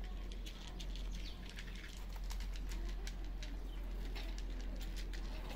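Cats eating dry kibble from plates: irregular, sharp crunching clicks of chewing over a steady low hum.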